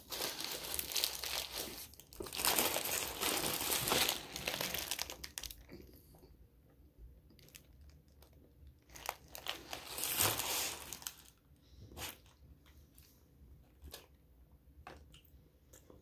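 Brown paper sandwich wrapper crinkling as the sandwich is handled, in three loud stretches over the first eleven seconds, then only faint scattered rustles and clicks.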